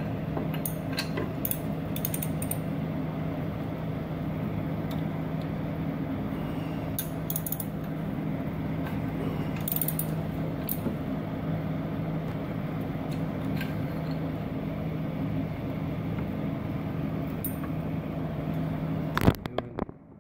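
Hand ratchet clicking in short scattered runs as a 7/8-inch oxygen sensor socket loosens an oxygen sensor from the turbo exhaust, over a steady low hum.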